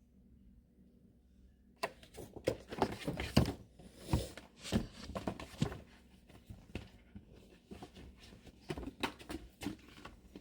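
A hardcover book and its paper dust jacket being handled. About two seconds in comes a few-second run of rustling, crinkling and light taps, followed by scattered quieter rustles.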